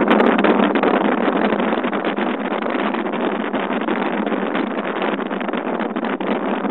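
Wind and road noise from a slowly moving car, buffeting the recording phone's microphone: a steady, loud rushing hiss with constant crackle.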